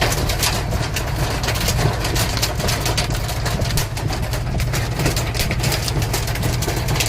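Heavy hail pelting down: a dense, continuous clatter of hailstones striking hard surfaces over a steady low rumble.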